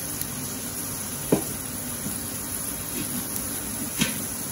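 Onions, tomato paste and curry powder sizzling steadily in a wok over a gas flame, with two short sharp knocks, one about a second in and one near the end.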